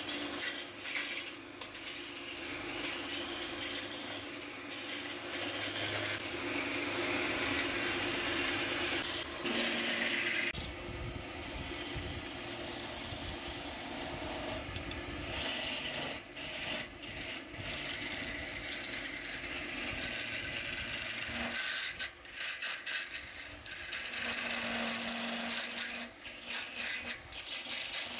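Wood lathe running with a steady hum while a hand-held turning chisel cuts a spinning wooden masher blank, a rasping, scraping noise of shavings peeling off. The cutting comes and goes as the tool is eased off and set again.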